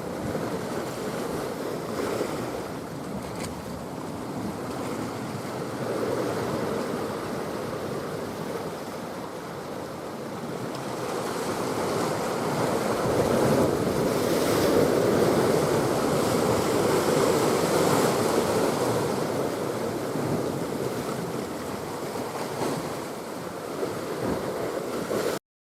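Sea waves washing, with wind buffeting the microphone: a steady rushing that swells louder about halfway through, then cuts off abruptly just before the end.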